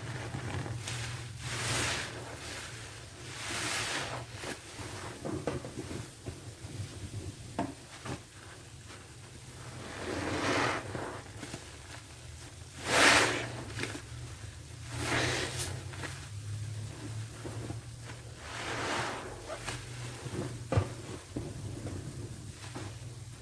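Soapy sponge squeezed by hand, giving wet squelches of foam and liquid: about six separate squeezes, the loudest about halfway through.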